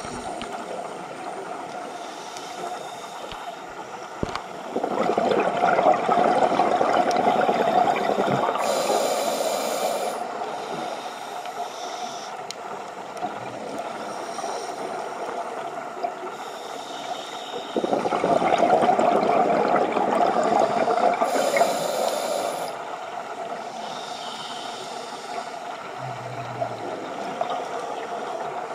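Scuba diver breathing through a regulator underwater: two long, rushing bursts of exhaled bubbles about thirteen seconds apart, each ending in a short high hiss, over a steady underwater hiss.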